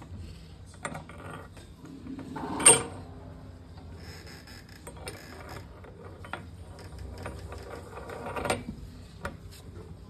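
Homemade rebar door latch being worked by hand: metal rattling and clicking as the bar slides and the ring turns, with a sharp loud clank about two and a half seconds in and another near the end as the door is unlatched, opened and latched shut again.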